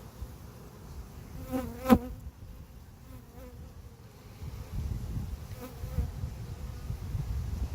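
Honeybees buzzing around a bee trap, one flying close by with a louder buzz about a second and a half in, ending in a sharp knock. A low rumble joins from about halfway.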